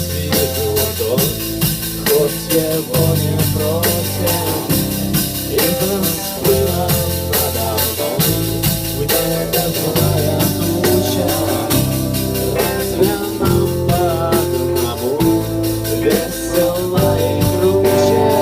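Punk-rock band playing a passage without words: drum kit with a dense, steady cymbal beat under guitars and bass, and a lead melody that bends up and down in pitch.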